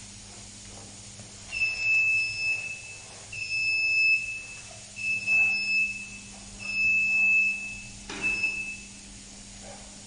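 Electronic buzzer on an AC withstand-voltage test console sounding five long, steady high beeps, each about a second long, with a sharp click just before the last one. Under it runs a steady low hum.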